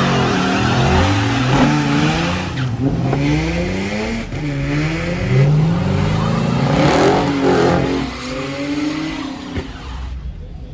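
Dodge Charger's engine revving up and dropping back again and again, about once a second, as it spins its rear tyres in donuts on wet pavement, with the hiss of the spinning tyres. It eases off near the end.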